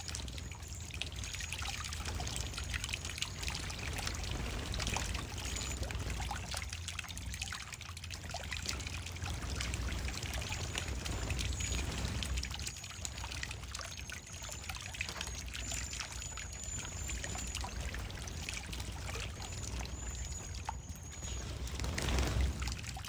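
Water trickling and splashing in a birdbath as cedar waxwings bathe, with the birds' very high, thin calls over it in several clusters.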